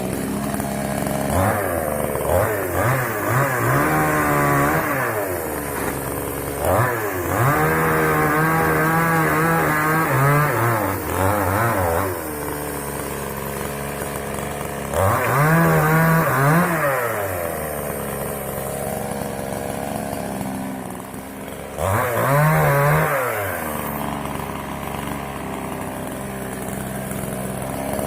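Moto Yama two-stroke chainsaw running, opened up to full speed four times for several seconds at a time and dropping back to idle between, as in cutting dry wood.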